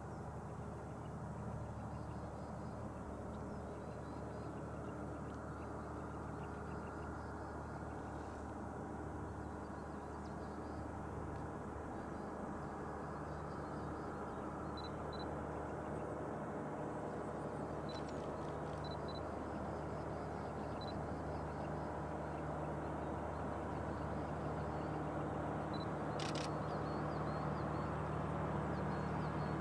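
Distant diesel train engine droning steadily and slowly growing louder as it approaches, with one sharp click near the end.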